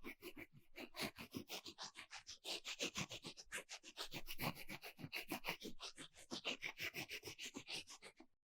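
Rapid scratching strokes, several a second in a quick, even rhythm.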